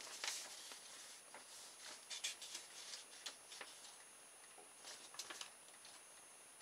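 Paper pages of an instruction booklet rustling faintly as they are handled and turned, in a few short crinkles.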